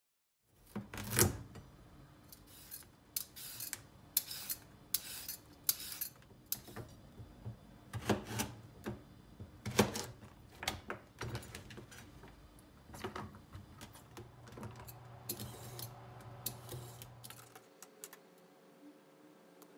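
Kitchen knife cutting carrots into sticks on a plastic cutting board: irregular knocks of the blade against the board, over a low steady hum that stops near the end.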